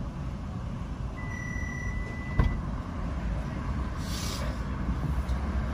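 Low steady rumble of vehicle engines as a box truck drives past close by. About a second in there is a high steady tone lasting over a second, with a click near its end, and a short hiss comes around four seconds.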